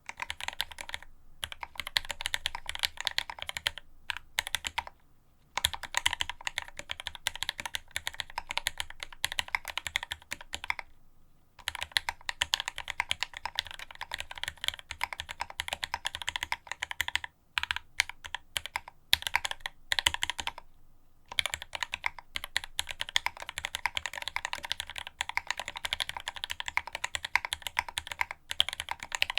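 Fast typing on a Quasi Alice mechanical keyboard with Marshmallow switches and GMK Godspeed ABS keycaps: dense runs of keystroke clacks, broken by a few pauses of about a second.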